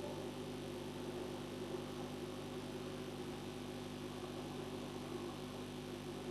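Steady electrical hum with an even hiss, several low tones held level and unchanging.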